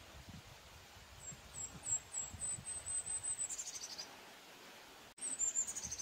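Golden-crowned kinglet singing: a string of very high, thin notes coming faster and faster, ending in a short tumbling chatter that drops lower. A second song starts near the end.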